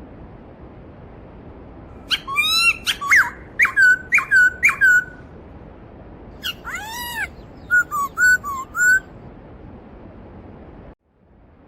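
A stream of water running steadily, with a songbird singing loud whistled phrases over it: a run of notes about two seconds in and another a few seconds later. The water sound drops out for a moment near the end.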